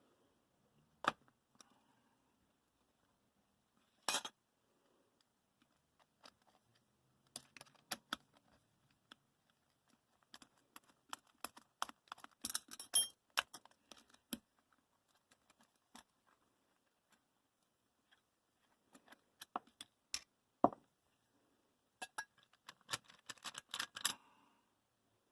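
Small metal parts and hand tools clinking and clicking in irregular clusters, with one sharper knock about twenty seconds in.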